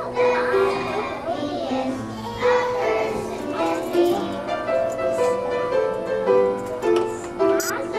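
A class of first-grade children singing a song together in unison.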